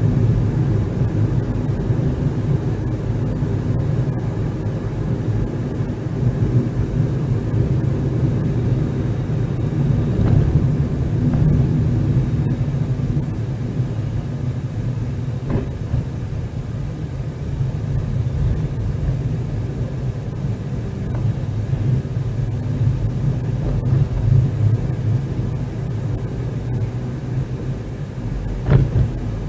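Car driving, heard from inside the cabin: a steady engine and road rumble. A few short knocks sound through it, the sharpest near the end.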